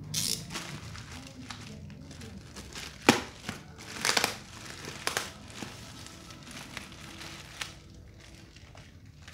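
Clear plastic bag around a cardboard parcel crinkling as it is handled and cut open with a box cutter, in irregular rustles with a sharp click about three seconds in.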